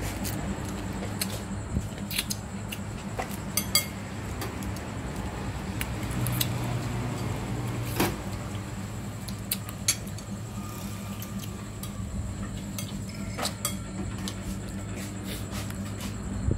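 Spoons and dishes clinking now and then during a meal, a dozen or so sharp clicks over a steady low hum.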